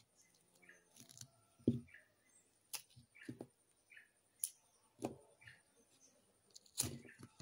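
Small whole fish being cleaned by hand on a stone slab: scattered short, sharp snaps and taps, half a dozen or so, as the fish are handled and put down on the stone.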